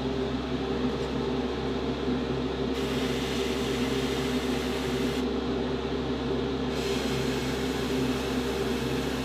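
Airbrush spraying, heard as two spells of even air hiss: one starting about three seconds in and lasting about two and a half seconds, the other starting about a second and a half later and carrying on to the end. Under it, a steady motor hum.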